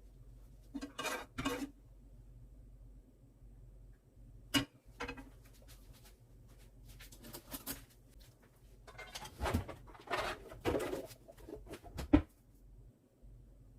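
Kitchenware being handled: scattered clinks, knocks and scrapes of utensils against dishes, the sharpest knocks about four and a half seconds and twelve seconds in, with a busier stretch of scraping between them.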